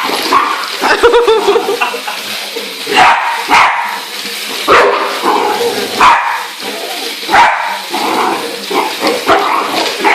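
Dogs barking repeatedly, a sharp bark every second or so.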